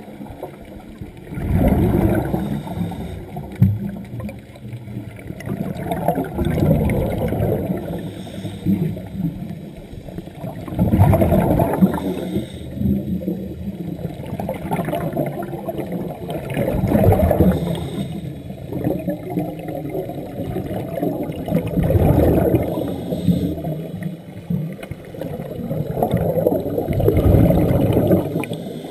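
Scuba regulator exhaust bubbles gurgling out in bursts about every four to five seconds as a diver breathes underwater, over a steady low water rumble.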